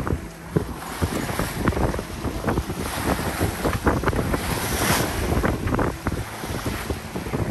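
Wind buffeting the microphone over the rush and splash of water streaming along the hull of a Compromis 777 sailboat under sail, with one louder hiss of spray about five seconds in.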